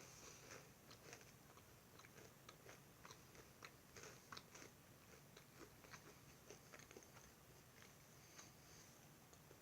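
A person chewing a Nature Valley almond butter granola cup: quiet, irregular crunching, several small crunches a second.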